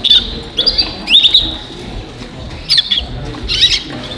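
Show canaries chirping: about five short, sharp calls close by, over a steady background chatter of many caged birds.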